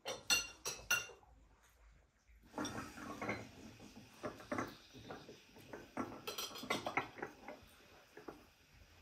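Tableware clinking during a meal: three sharp clinks in the first second, then from about two and a half seconds a run of small clicks and knocks from plates, cutlery and tea glasses on saucers.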